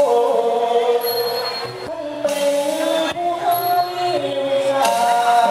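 A singer holding long, wavering notes that slide from pitch to pitch in a Thai traditional vocal style, over accompaniment. A short, high, ringing stroke sounds about every two and a half seconds.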